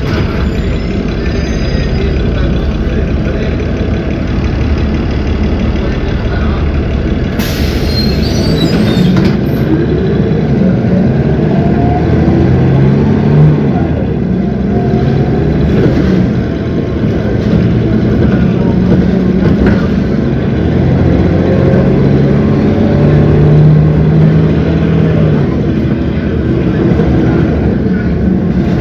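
A city bus's Cummins ISB 6.7 diesel engine running while under way, its pitch rising as it pulls away about ten seconds in and shifting again around twenty seconds. A short hiss of air comes about seven seconds in.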